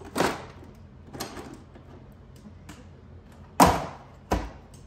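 Knocks and clunks of things being moved about in a refrigerator's shelves and door bins: light knocks in the first second and a half, then two louder ones, the loudest about three and a half seconds in.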